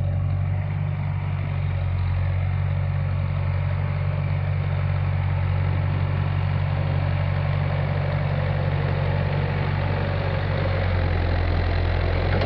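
Engine of an early-1970s John Deere backhoe idling steadily.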